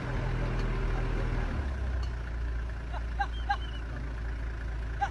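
A vehicle engine running steadily, its pitch stepping down slightly about a second and a half in. From about three seconds in, a few short, high chirping calls come in quick succession over it.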